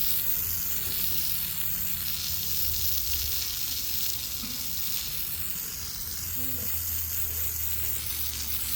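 Steady hiss of a water spray washing ice off freshly sawn black walnut, with a low steady engine hum underneath.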